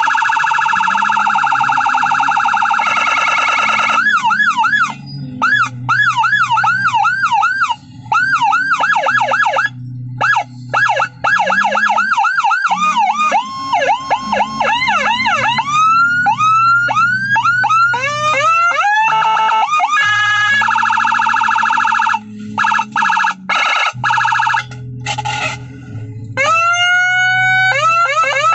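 Whelen HHS 60-watt electronic siren module sounding loudly, switched through its different tones. It goes from a steady tone to fast repeating up-and-down sweeps, then slower rising sweeps, with short breaks between patterns. A long rising wail comes near the end.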